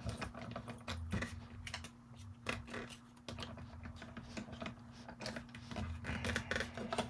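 Hand-cranked die-cutting machine being worked: irregular clicks and knocks from the crank and the metal cutting plates being pushed against the rollers, which are not drawing the plates through. A steady low hum runs underneath.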